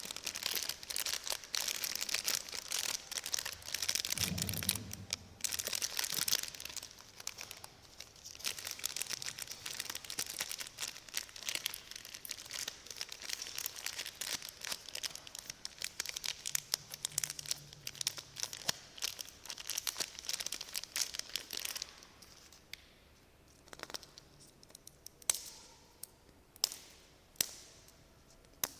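Plastic snack wrapper crinkling and tearing, busy and continuous for most of the stretch, giving way near the end to a few separate light clicks and taps.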